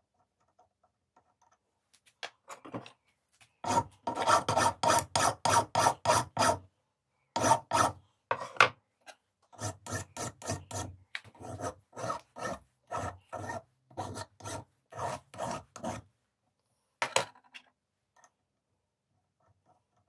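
Hand file worked back and forth in quick, even strokes, about three or four a second, in three runs with short pauses, taking a little material off.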